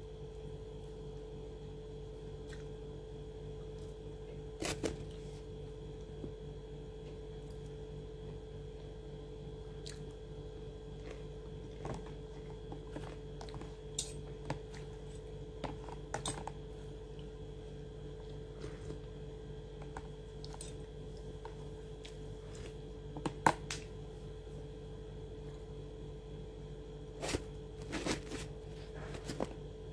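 Food being handled and eaten by hand: scattered small taps, tears and crunches, a few at a time, the sharpest about two-thirds of the way in and a cluster near the end, over a steady electrical hum.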